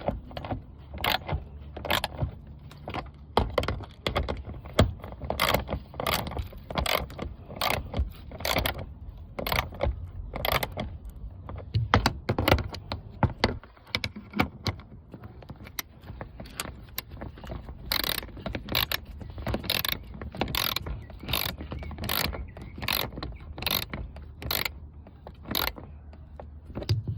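Hand ratchet wrench clicking in repeated strokes, about two a second, while tightening bolts, with a steady low hum underneath.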